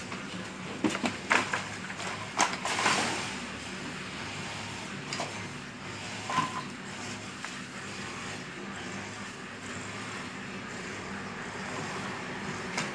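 A steady low engine hum runs throughout. Over it come several sharp clattering knocks in the first three seconds, from a steel wheelbarrow of wet concrete being wheeled along a wooden plank and tipped onto a rebar slab.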